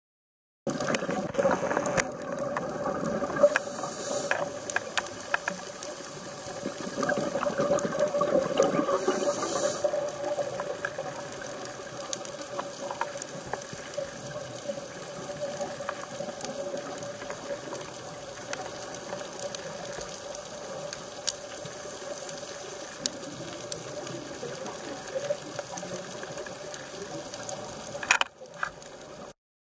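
Underwater sound of a scuba dive recorded through a compact camera's housing: a steady hum under a haze of bubbling and rushing water, louder for a few seconds near the start and again about a third of the way in, with scattered sharp clicks.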